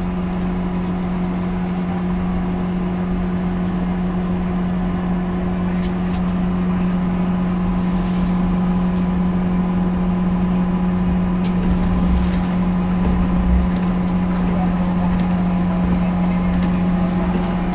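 Aircraft towing tractor's engine running with a steady drone, heard from inside the tractor's cab.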